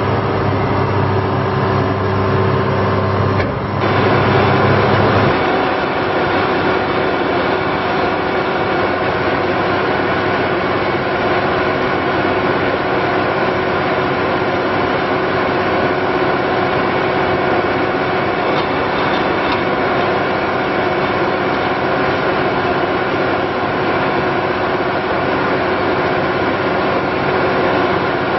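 Cummins diesel engine of an asphalt paver running steadily. About four to five seconds in, the deep hum drops away and a noisier, rougher running sound takes over.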